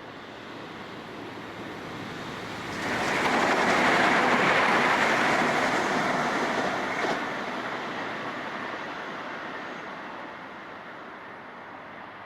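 A Countrylink Xplorer diesel railcar set passing through a station, a rushing wheel-and-air noise that builds, comes on strongly about three seconds in, stays loudest for about four seconds, then fades away.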